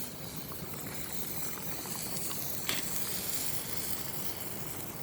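Soup simmering in a pot over a campfire: a steady hiss and bubbling, with an occasional sharp pop, one clear one near the middle.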